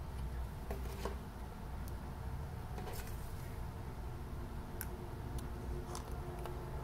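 Steady low hum with a few faint, light clicks and taps as wooden craft sticks tied with string and a plastic glue bottle are handled.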